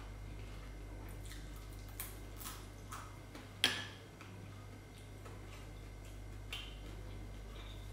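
Eating crispy fried fish and rice by hand: a few short crisp crunches and clicks from chewing and from fingers picking at the food, the loudest about three and a half seconds in.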